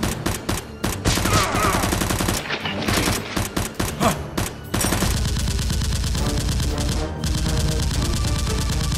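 Rapid bursts of dubbed-in automatic gunfire sound effects, with background music underneath that comes forward in the second half.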